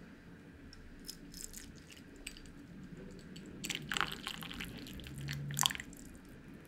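Espresso pouring from an aluminium moka pot into a ceramic ramekin: a thin stream of coffee trickling and splashing, loudest about four seconds in and again about five and a half seconds in.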